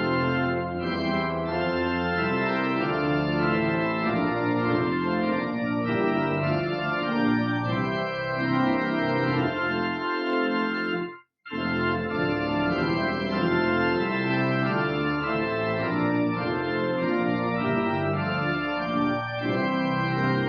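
Church organ playing full sustained chords, with a moment of silence just over halfway through before the playing resumes.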